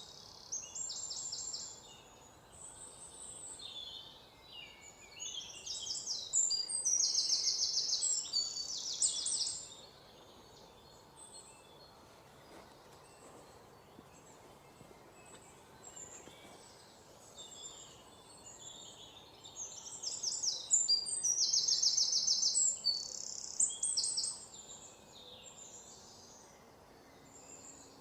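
Small birds singing high-pitched, rapidly repeated trills in several bouts, loudest about a quarter of the way in and again past two thirds, over a faint steady background hiss.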